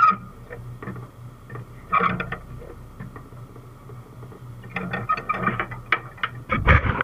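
Steel tie-down chain and chain load binder being worked tight: a sharp metal clank, another about two seconds in, then a run of chain rattles and clanks that grows loudest near the end as the binder handle is pulled down and closed.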